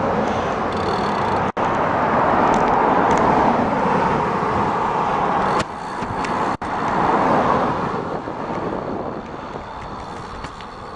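Steady rushing wind and road noise from riding a bicycle outdoors, cut off for an instant twice.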